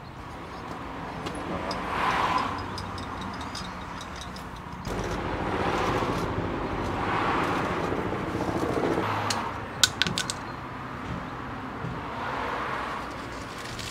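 Road traffic passing by, several vehicles one after another, each swelling and fading over a couple of seconds. A few sharp clicks come about ten seconds in.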